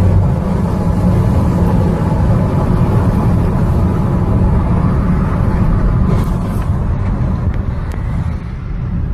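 Car driving along, its engine and road noise heard from inside the cabin as a steady low noise.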